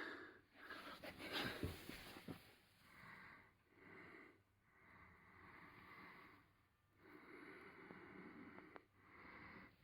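Faint breathing close to the microphone, a series of soft drawn breaths, with a few small handling clicks.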